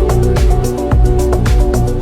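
Instrumental background music with a steady drum beat, about two beats a second, under held melodic notes.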